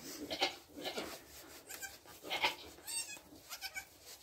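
Newborn Nigerian Dwarf goat kids giving a few short, faint, high-pitched bleats, among soft rustling in the straw bedding as the doe moves over them.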